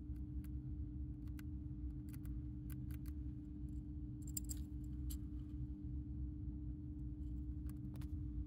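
A dwarf hamster crunching and gnawing dry treats: small, sharp, irregular clicks, bunched more closely about halfway through, over a steady low hum.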